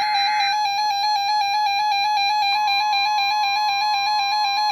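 Weather radio receiver sounding an alert for a NOAA Weather Radio required weekly test: a rapidly pulsing, buzzy alarm beep. The warbling end of the EAS/SAME data header burst is heard at the very start. About halfway through, the steady 1050 Hz NWS warning alarm tone comes in under the beeping.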